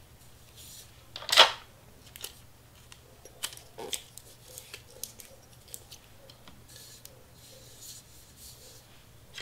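Heat-resistant tape being pulled and torn, with one loud short rasp about a second and a half in, amid small crinkles and taps of paper and tape being pressed onto a sublimation tumbler.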